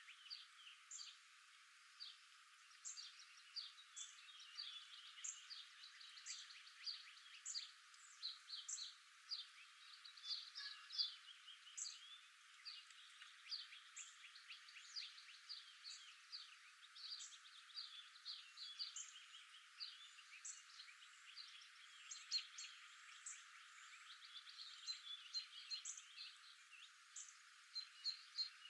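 Faint chorus of small birds chirping, many short high calls overlapping several times a second.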